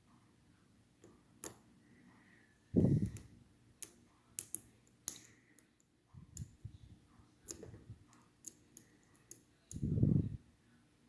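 Lock picks clicking and scratching against the pins of a Schlage Primus Everest cylinder, a string of irregular sharp little clicks. Two short, low, muffled sounds stand out, about three seconds in and near the end.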